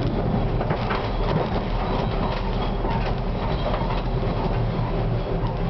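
Konstal 105Na tram running steadily along the track, heard from inside the driver's cabin: a constant low rumble of wheels and running gear with scattered clicks and rattles.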